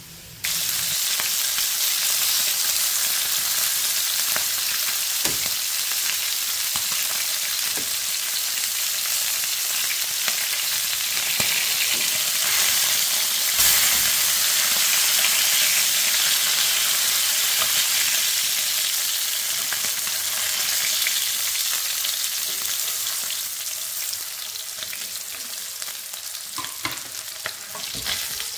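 Food frying in hot oil in a pan: a loud, steady sizzle that starts abruptly about half a second in and eases slightly near the end, with a few sharp clicks of a utensil stirring.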